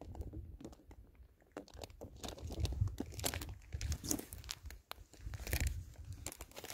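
Plastic bag of bait minnows crinkling and rustling as it is handled and lifted, with scattered crunches and knocks on the ice.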